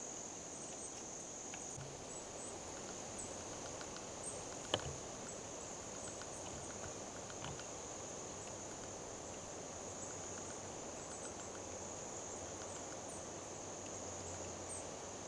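Woodland ambience dominated by a steady, high-pitched insect trill, with faint scattered chirps above it. A single sharp click comes about five seconds in.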